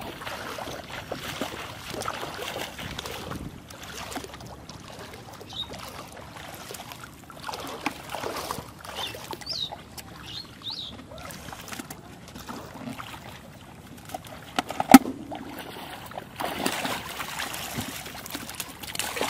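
Shallow water sloshing and splashing as a person wades and handles a catfish trap, turning to heavier splashing near the end as the trap is pulled up. A single sharp click about fifteen seconds in is the loudest sound.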